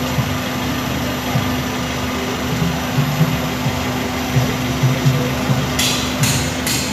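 Toyota Rush engine idling, heard from under the car: a steady drone with an uneven low rumble, the humming and rumbling (dengung, gemuruh) that comes through into the cabin when the car is stopped at idle. Near the end come a few short bursts of hissing noise.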